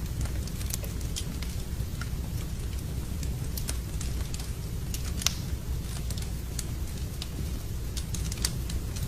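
Wood fire crackling in a fireplace: irregular sharp pops and snaps over a steady low rumble, with the loudest pop about five seconds in.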